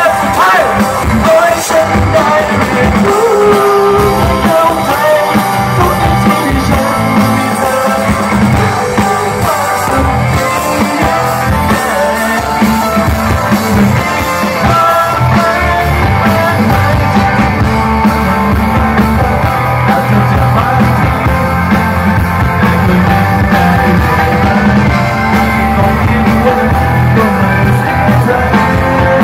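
Live rock band performance: a male vocalist singing into a microphone over electric guitar, bass guitar and drums, loud and continuous.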